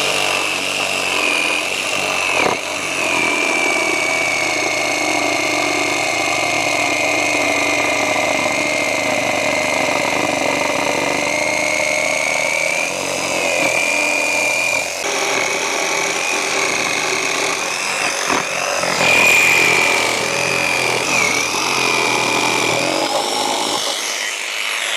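Electric jigsaw running and cutting around a template through the backing of a taxidermy deer form. It makes a steady motor whine that dips briefly in pitch a few times as the blade takes load, and it stops right at the end.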